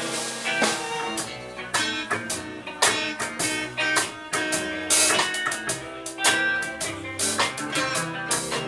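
Live rock band playing without vocals: guitars over a drum kit, with frequent drum and cymbal hits.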